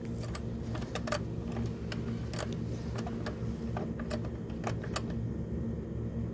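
Scattered light metallic clicks and taps of a hand tool reconnecting a battery cable terminal, irregular, over a steady low hum.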